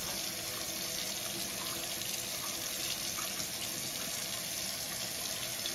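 Kitchen faucet running steadily into a stainless steel sink, the water splashing over a paintbrush as it is rinsed out.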